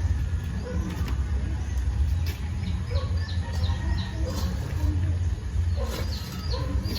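Birds chirping in short, quick falling notes, in clusters about three seconds in and again near the end, over a steady low rumble.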